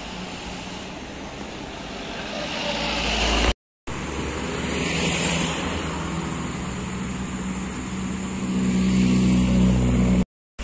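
Motor vehicles passing on the road, tyre and engine noise swelling and fading, then an engine running with a low drone that grows louder in the last couple of seconds. The sound drops out briefly twice at edits.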